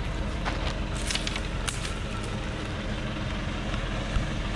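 Loaded timber truck's diesel engine idling steadily, with a few light clicks in the first two seconds.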